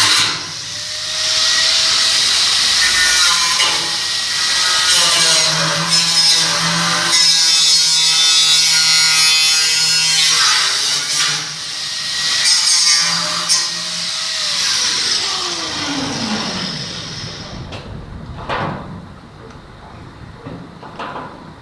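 Angle grinder working steel: a loud, harsh grinding hiss over a motor whine. About 14 seconds in the grinder is switched off and its whine falls steadily as the disc spins down, followed by a few sharp metal knocks.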